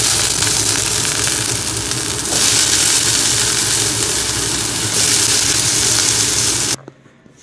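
Wet cubed potatoes sizzling loudly as they hit hot oil in a steel kadhai. The sizzle gets louder as more handfuls go in, about two seconds in and again about five seconds in, then stops abruptly near the end.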